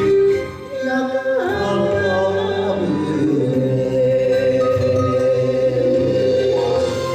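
Enka-style song accompaniment playing its closing bars, a melody line ending on one long held note.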